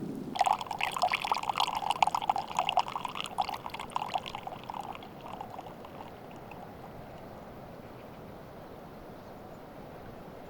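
Spring meltwater trickling and gurgling in lively, irregular splashes that start suddenly, then die away about five seconds in, leaving a faint steady hiss.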